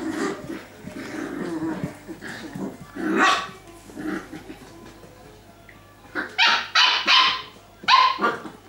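Six-week-old puppies growling and yapping as they play together: low growls at first, then sharp high yaps, a quick run of about four around two-thirds of the way through and one more near the end.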